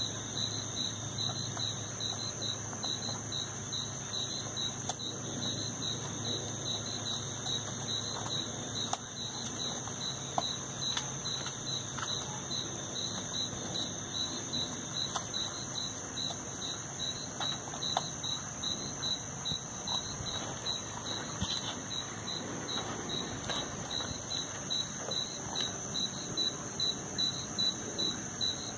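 Night insects chirping: a steady high-pitched drone with a rhythmic chirp repeating about twice a second, and a few faint clicks now and then.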